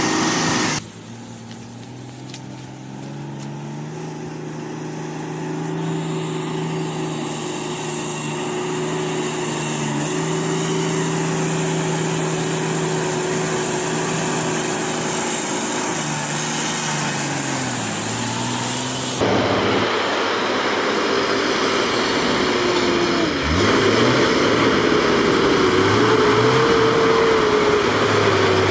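Heavy truck engine running, its pitch dipping and rising now and then with changes in engine speed; the sound changes abruptly twice, about a second in and again about two-thirds of the way through.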